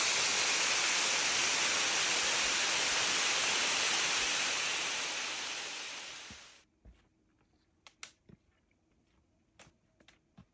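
A steady rushing noise that fades over a couple of seconds and stops abruptly about two-thirds of the way in, leaving near silence with a few faint clicks.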